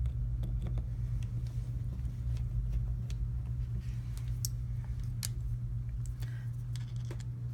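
Scattered small sharp clicks and ticks of a precision screwdriver turning the screws of an Ontario Carter Prime folding knife, over a steady low hum.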